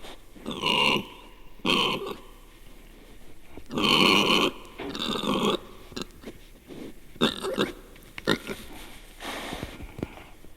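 An animal grunting in a series of short, rough bursts, about eight in all, the loudest about four seconds in.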